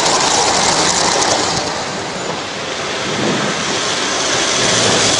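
Vintage tinplate model train running close by on tinplate track: a loud, steady clatter and rumble of wheels on rails that eases a little about two seconds in and then builds again.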